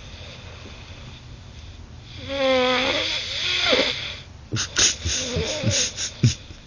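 Snoring: one long snore with a wavering, whistling pitch about two seconds in, then a run of about six short, sharp snuffles near the end.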